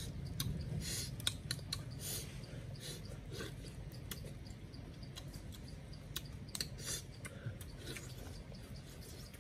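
Close-up chewing and lip-smacking as grilled fish is eaten by hand, a run of irregular wet smacks and crunchy clicks over a low steady hum.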